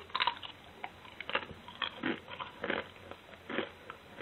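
Popcorners Kettle popcorn chips being bitten and chewed close to the microphone: a string of crisp, irregular crunches, about one every half second.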